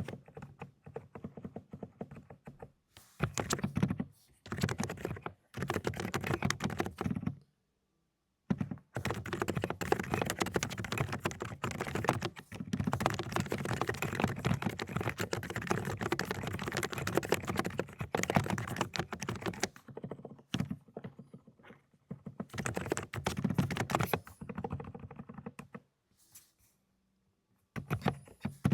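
Fast typing on an Aula 'Dokgeomi' mechanical keyboard fitted with silent cotton-candy linear switches: dense runs of soft, rapid key strokes broken by a few short pauses, one about a quarter of the way in and another near the end.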